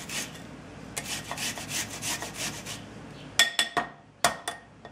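Onion being grated on a microplane, steady rasping strokes about three a second. About three and a half seconds in come several sharp ringing taps as the metal grater knocks against the rim of the glass bowl.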